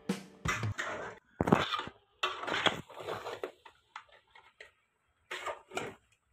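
Metal spatula scraping and knocking against an aluminium pot as pork curry is stirred, in irregular strokes with short gaps; the loudest comes about a second and a half in.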